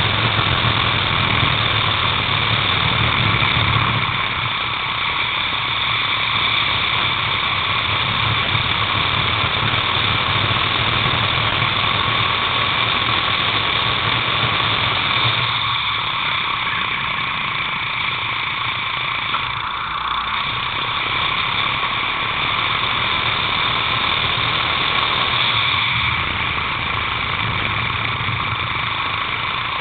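Racing kart engine heard onboard at speed, a steady high-pitched whine with a few brief dips where the driver eases off.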